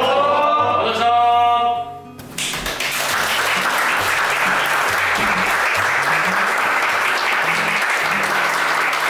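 A group of voices calling out together for about two seconds, then steady applause over background music.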